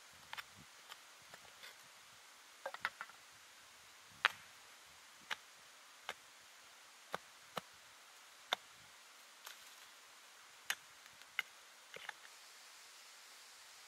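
Soil, grit and small stones being scraped and knocked by gloved hands while levelling the ground around a flat base stone: irregular sharp clicks and knocks, one or two a second, over a faint hiss. The loudest knock comes about four seconds in.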